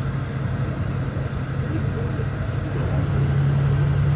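Semi truck's diesel engine droning steadily inside the cab on the road, getting a little louder about three seconds in.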